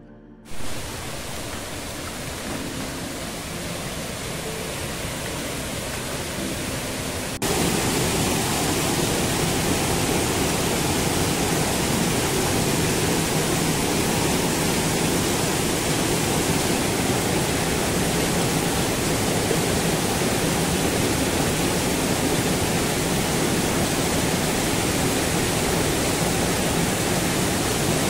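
Rushing water of a small rocky stream cascading over boulders: a steady, even hiss that steps up louder about seven seconds in.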